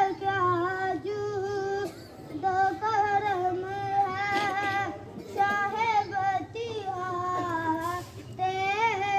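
A boy's voice reciting a naat, a devotional poem in praise of the Prophet, as an unaccompanied sung chant. A single voice holds wavering notes in phrases, with short breaks between lines.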